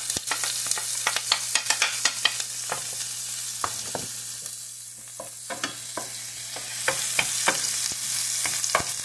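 Chopped onion and garlic sizzling in hot oil in a frying pan, with a steady hiss and many sharp crackles and pops. A wooden spatula stirs and scrapes through them.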